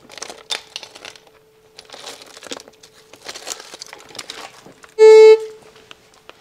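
Stones and rubble crunching and scraping as they are shifted by hand, over the faint steady hum of a metal detector. About five seconds in, the detector sounds a loud half-second beep, signalling metal under the spot.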